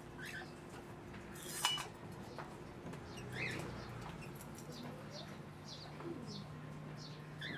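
Metal thurible and incense spoon clinking as incense is spooned onto the charcoal, with one sharp clink about two seconds in. Birds chirp over a low steady hum.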